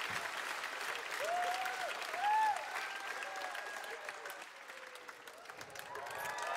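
Theatre audience applauding, with a few voices rising over the clapping. The clapping thins out about two-thirds of the way through, then swells again near the end.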